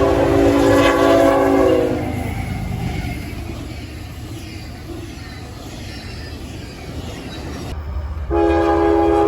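Locomotive air horn sounding a chord of several notes, which drops slightly in pitch as it ends about two seconds in, followed by the rumble and clatter of the passing train. Near the end a second horn chord starts suddenly and holds steady.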